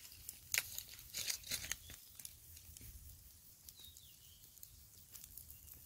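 Charcoal embers crackling and popping under skewered climbing perch, with a cluster of sharp crackles in the first two seconds and only a few after.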